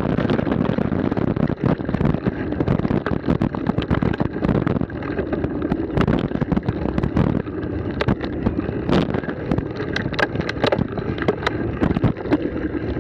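Mountain bike descending a rocky dirt singletrack: tyres rumbling over stones and roots, with frequent sharp rattles and knocks from the bike, and wind rushing on the microphone.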